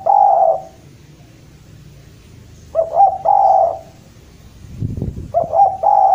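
Spotted dove singing its cooing phrase, a few short notes then a longer held coo, repeated about every three seconds: a call to rival males. A brief low rumble comes just before the last phrase.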